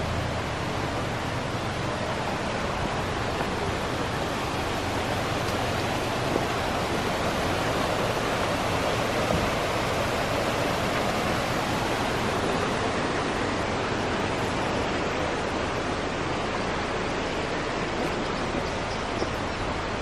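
Stream water rushing over rocks and small cascades: a steady, even rush, a little louder about halfway through.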